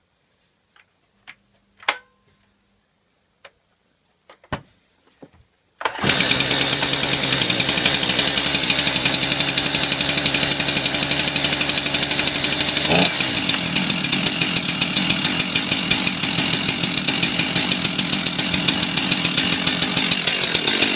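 A few sharp clicks, then about six seconds in a Stihl 42cc two-stroke petrol chainsaw starts suddenly and runs steadily with a fast engine pulse. Its tone shifts about halfway through.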